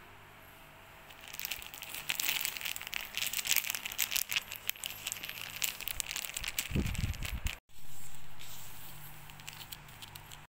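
Thin plastic wrapping on Kleenex tissue packs crinkling and crackling as it is handled and opened, with a brief low bump about seven seconds in. The crinkling cuts off abruptly about three-quarters of the way through, leaving a quieter stretch.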